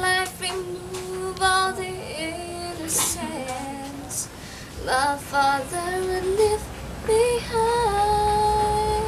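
A woman singing a slow melody with long held notes, the last note held for about a second and a half near the end.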